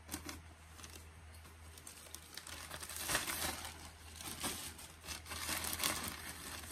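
Plastic packaging crinkling and rustling as it is handled and opened, in irregular bursts that grow busier and louder about halfway through.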